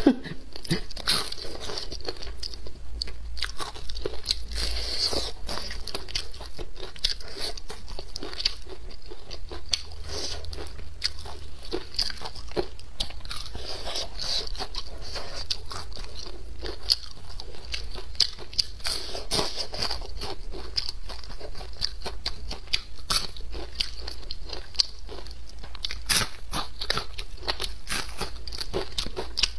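Close-miked crunching and chewing of crisp deep-fried yellow croaker, eaten by hand, with a constant crackle of small bites.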